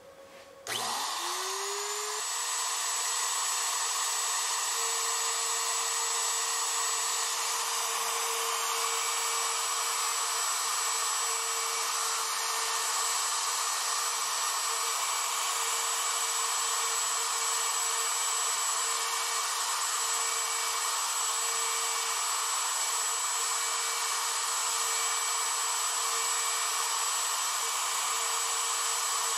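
CNC router spindle spinning up about a second in with a rising whine, then running at a steady high whine while its V-bit engraves lettering into the sheet.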